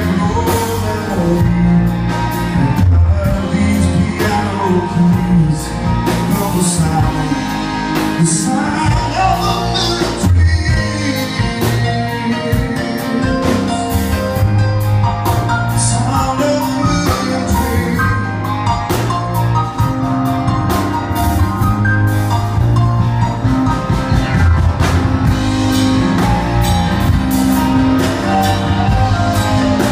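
Live country-rock band performing a song, with drum kit, instruments and singing throughout.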